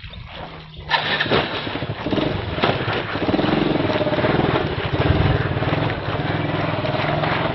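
A small engine running steady, louder from about a second in.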